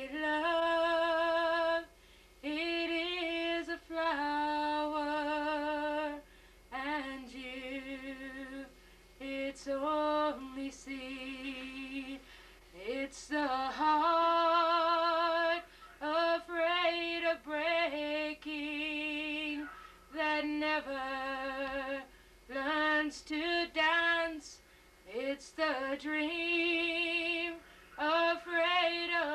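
A woman singing solo and unaccompanied, in phrases of long held notes with vibrato, with short breaks between phrases.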